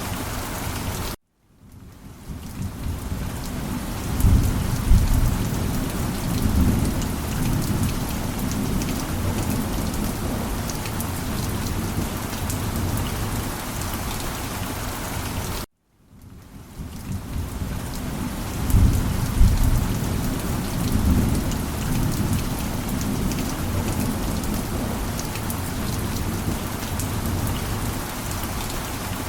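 Steady rain with rolling thunder rumbling low twice, about 4 and 19 seconds in. The sound cuts to silence for a moment twice, about 1 and 16 seconds in, and each time the same stretch of rain and thunder starts over as a repeating loop.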